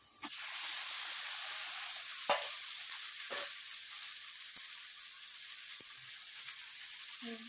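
Curd-marinated chicken sizzling in hot oil and ghee with fried onions, the sizzle starting suddenly as the chicken goes into the pan. A few sharp knocks sound over it, the loudest about two seconds in and another a second later.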